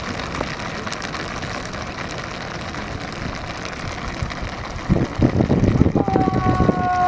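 Outdoor wind noise rushing on the microphone, with louder uneven knocks and rumble from about five seconds in. Near the end a long call held at one steady pitch begins.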